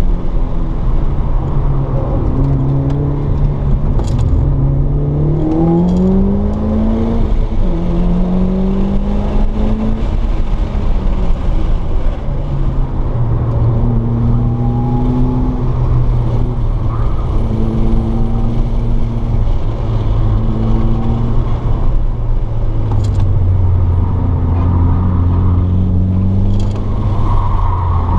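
Mitsubishi Lancer Evolution VIII's turbocharged 2.0-litre four-cylinder engine running hard at speed on a race track. The revs climb in steps through the gears early on, then hold at steadier engine speeds that rise and drop with the corners.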